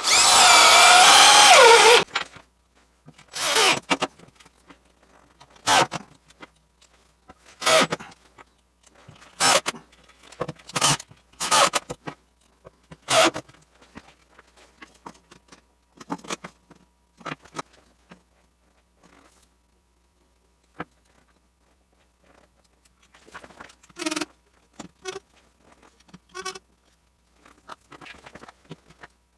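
Cordless drill driving a screw for about two seconds, its motor pitch falling as it comes under load. It is followed by a series of short knocks and scrapes from handling wood and tools.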